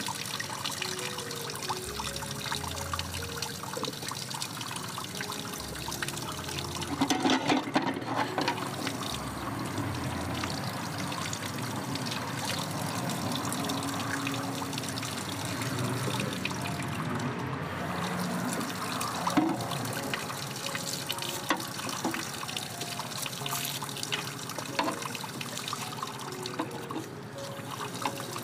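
Water from an outdoor tap running steadily into a basin, splashing over hands as raw lamb in a bowl and then a tomato are rinsed under the stream, with a louder stretch of splashing about seven seconds in.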